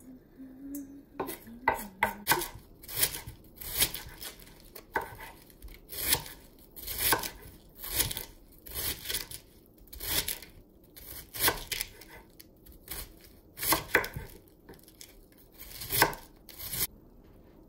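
Chef's knife thinly slicing a head of red cabbage on a wooden cutting board: a steady series of cuts, a little more than one a second, starting about a second in and stopping shortly before the end.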